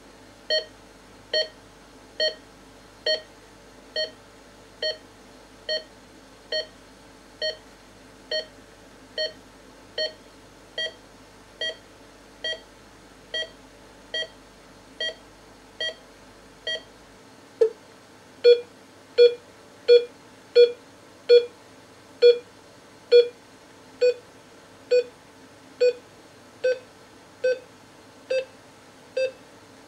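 Philips M3 patient monitor's pulse tone: a short electronic beep with each pulse beat picked up by the SpO2 sensor, a little more than one a second. About two-thirds of the way through, the beeps drop in pitch, grow louder and come slightly faster, the pitch falling with the oxygen saturation as it drops from the high 90s toward 91% while the pulse rises to about 90.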